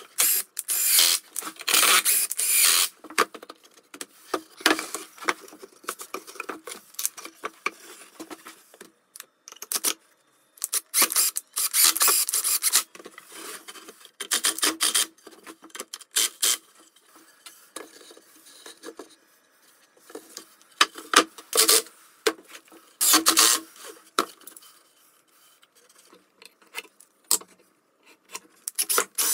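Cordless drill driving pocket screws into a pine frame, in repeated bursts of one to three seconds with short pauses between.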